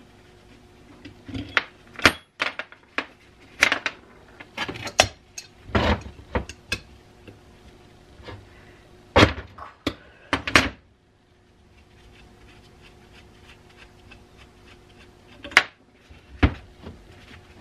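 Cast-iron body and small metal parts of a 1920s Keystone Iron City hand-crank grain grinder knocking and clinking as they are handled and turned over during disassembly. The knocks are irregular and come thickest in the first half, with a quieter spell after about eleven seconds.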